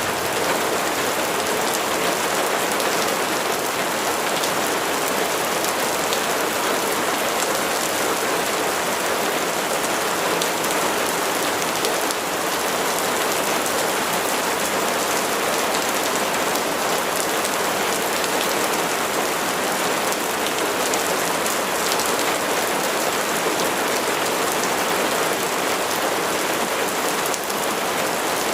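Steady rain falling on a surface, an even, continuous patter with no thunder.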